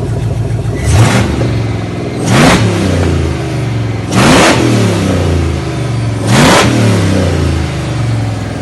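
A 4x4's engine idling on its first start-up, blipped four times with the throttle: each rev rises and falls back to idle within about a second.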